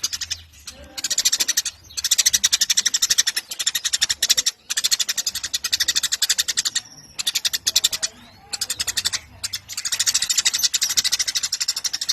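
Eurasian tree sparrows chattering: runs of very fast, sharp, high chirps, each run lasting a second or two, with short breaks between.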